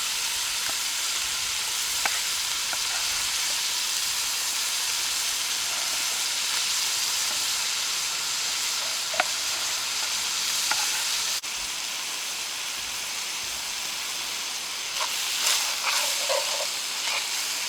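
Beef mince with onion, garlic and pepper sizzling and frying in a cast iron Dutch oven, a steady hiss with a few light clicks.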